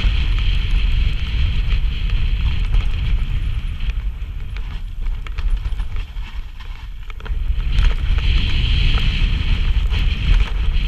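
Wind rushing over a helmet-mounted camera's microphone while a mountain bike descends a rough dirt trail at speed, with a low rumble from the tyres and frequent sharp clicks and knocks from the bike rattling over roots and stones. A higher hissing buzz is strong at the start, fades through the middle and returns about eight seconds in.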